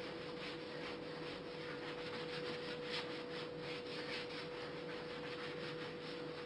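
A cloth or sponge wiping over glazed ceramic kitchen tiles in quick back-and-forth strokes, scrubbing off grease loosened by a salt-based cleaner. The strokes are strongest in the middle. A steady hum runs underneath.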